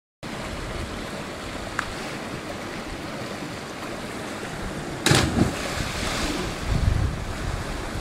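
Steady rush of a small waterfall into a river pool, then about five seconds in a loud splash as a person jumps from a rock into the pool, followed by churning water.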